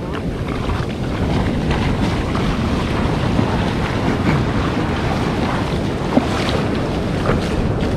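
Shallow ocean surf washing and foaming around the shore, with wind buffeting the microphone.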